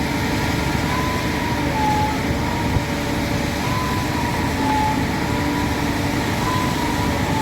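Concrete pump truck running hard in a concrete pour, its diesel engine a steady loud drone with a whine that dips in pitch at a regular interval, about every two and a half seconds.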